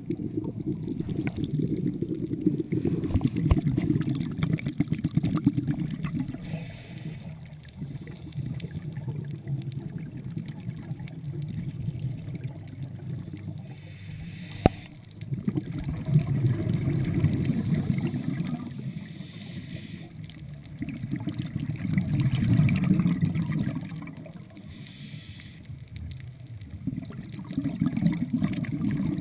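A scuba diver's exhaled bubbles from the regulator, heard underwater as low rushing and gurgling swells every few seconds, with quieter gaps between breaths. A single sharp click sounds about halfway through.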